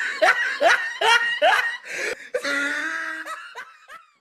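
High-pitched laughter in repeated short 'ha' strokes, about two or three a second, with one longer held laugh in the middle, fading out near the end.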